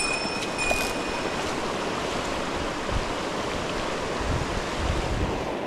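Fast-flowing river water rushing steadily over bedrock. A thin, high, steady tone sits on top for about the first second and a half.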